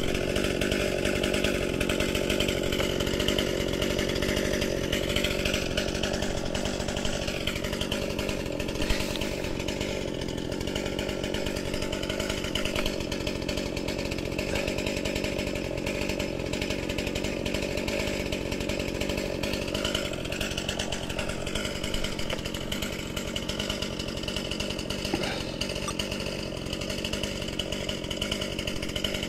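Two-stroke chainsaw running at speed without a break. Its engine pitch bends and recovers twice, about a fifth of the way in and again past two-thirds.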